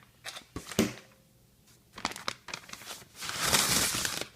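Plastic meal-kit packaging being handled: a few light knocks and crinkles, then a loud rustle of plastic for about a second near the end.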